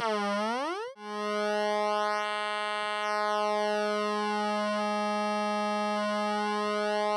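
Buzzy square-wave tone from 555 timer oscillators, played through a small guitar amplifier. The pitch dips and rises in the first second, cuts out briefly, then holds as a steady low buzz.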